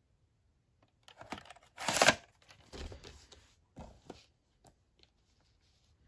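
A plastic VHS cassette being pushed into its cardboard sleeve, a rough scraping rustle that is loudest about two seconds in. It is followed by a few softer rustles and light knocks as the boxes are handled and set down on a bedspread.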